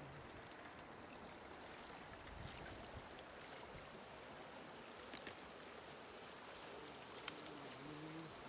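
Faint water sloshing and trickling in the flooded bottom of a wooden boat as trapped catfish thrash, with a few small clicks and one sharp tick about seven seconds in.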